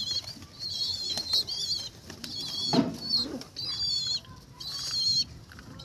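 Pigeons fighting: wings flapping and beating in short sharp strokes, with repeated high-pitched chirps. A louder, lower call comes about three seconds in.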